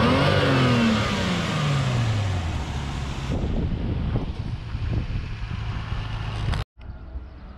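Nissan Skyline R34's RB25DET NEO turbocharged 2.5-litre straight-six being revved: the revs peak just after the start and fall back over about two seconds, then it idles steadily. About two-thirds of the way through the sound drops out abruptly and returns much quieter.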